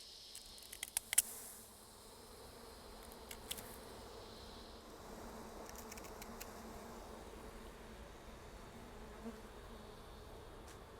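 A honeybee swarm buzzing steadily around an open hive box as the bees crowd down into it. A few sharp clicks come about a second in, and again around three and a half seconds.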